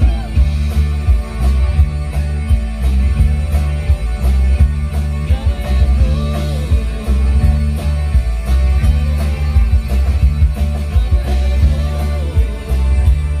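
Live country-rock band playing through a PA: electric and acoustic guitars over heavy bass and a drum kit keeping a steady beat, with a voice singing in places.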